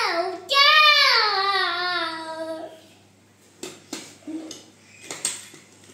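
A toddler's drawn-out, sing-song vocal sound, high-pitched and wavering as it slowly falls, lasting about two seconds. After it comes a quieter stretch with a few light clicks and knocks of plastic toy cars set down on a tabletop.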